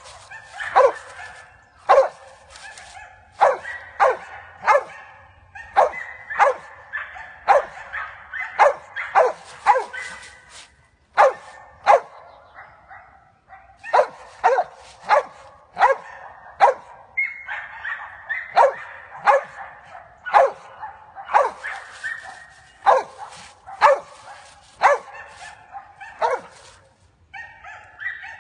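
A Mountain Kemmer feist barks repeatedly, about one or two barks a second, with a short pause about halfway. The dog is barking up at a tree: the treeing bark of a squirrel dog that has game treed.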